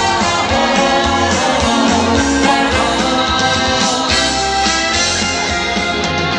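Loud music over a sound system: the instrumental break of a pop-trot song, with a steady bass beat and guitar.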